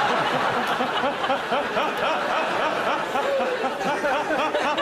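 Studio audience laughing, many overlapping laughs at once.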